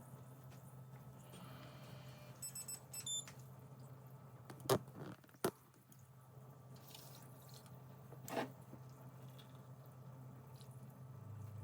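Quiet household handling sounds: a few sharp clicks and light knocks over a low steady hum, with a brief high chirp a couple of seconds in.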